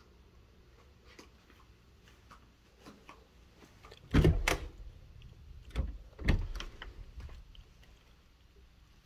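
A closet door being opened: a loud knock and rattle about four seconds in, then two more knocks around six seconds in.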